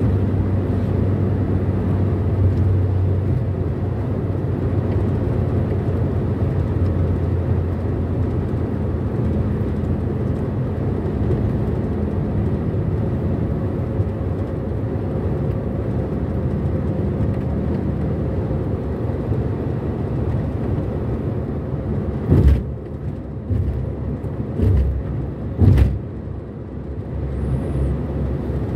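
Steady road and engine noise heard inside a car cruising at highway speed. Near the end come three short thumps.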